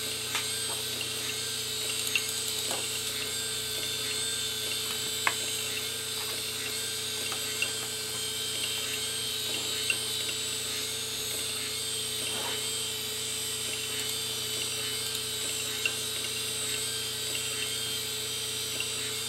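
Open-top 1997 Fujitsu 2.4 GB hard drive spinning with a steady whir and hiss, with a few sharp clicks scattered through it. Its platters are deeply gouged and the drive can no longer be read.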